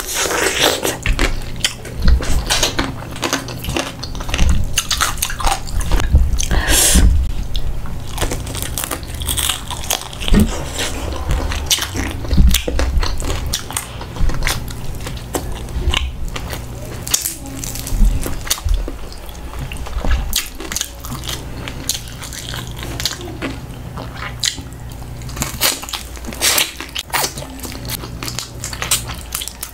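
Close-up eating sounds: bites crunching into crispy fried skin, followed by chewing, with many sharp crunches scattered throughout.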